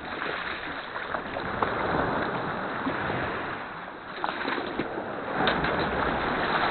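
Small sea waves washing and splashing against a paddled sea kayak, with wind on the microphone; the wash swells about two seconds in and again from about five and a half seconds.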